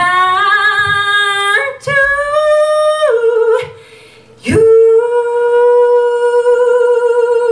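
A woman singing solo into a microphone with no accompaniment, in long held notes with vibrato: two rising phrases, a short break about four seconds in, then one long sustained note.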